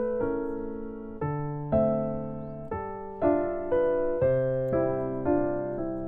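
Background music: soft piano chords, a new chord struck every half second to a second, each fading away before the next.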